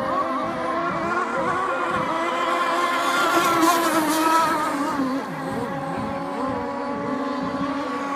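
A boat's engine running steadily. It swells and rises in pitch about halfway through, then drops back a second later.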